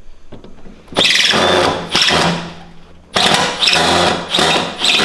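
Cordless drill running a screw out in two runs, one about a second in and another about three seconds in, each with a high, steady whine.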